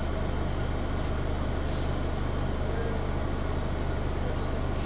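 Passenger train running, a steady low rumble with a rushing noise over it.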